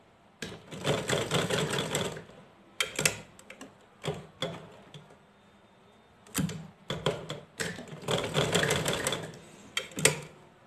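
Hand-cranked sewing machine stitching in two runs of rapid clatter, each about a second and a half long, with shorter clicks and knocks from handling the machine between them. It is sewing the end of an elastic ear loop onto a cloth mask, stitched over twice to make it secure.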